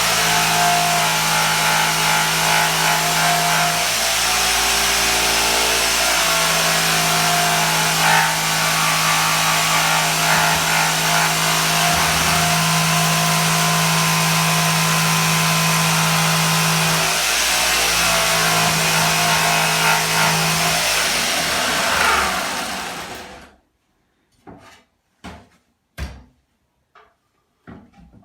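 Electric jigsaw running steadily while cutting a shaped notch in a wooden skirting board, then winding down and stopping a few seconds before the end, followed by a few light knocks.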